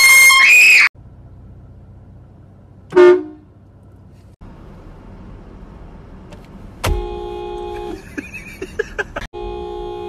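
A car horn blaring, a steady held tone, once for about a second some seven seconds in and again from just after nine seconds. Before it, a loud shrill sound that bends in pitch fills the first second and cuts off, and a short loud blast follows about three seconds in.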